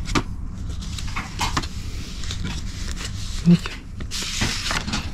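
Paper and plastic mail packaging being handled and rustled, with scattered small clicks over a steady low hum; a short low sound about three and a half seconds in, then a louder stretch of rustling near the end.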